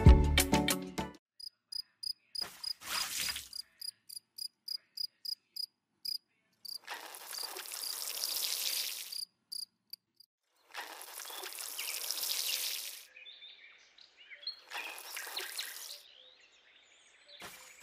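Water poured from a small plastic toy bucket splashing onto sand in several separate pours of a second or two each. A cricket chirps rapidly, a few times a second, through the first half. Music stops about a second in.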